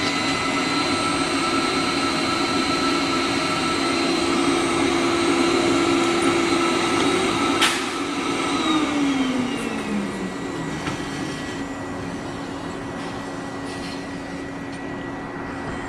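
Suction pump of an ice cream vending machine's robotic suction-cup arm running with a steady hum while it tries to pick up an ice cream. A sharp click comes about seven and a half seconds in, then the pump winds down with a falling pitch, leaving a quieter machine hum. The suction is failing to grab the item.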